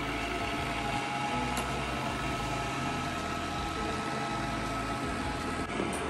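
Roidmi Eve Plus robot vacuum running: a steady hum from its suction fan and brushes, with a thin, steady whine above it.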